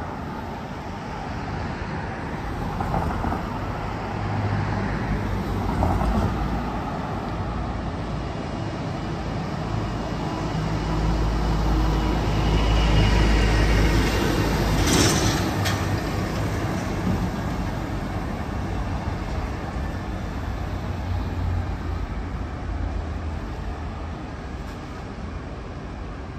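Road traffic: cars passing steadily along the street, with a heavier vehicle rumbling past about halfway through and a brief sharp noise just after it.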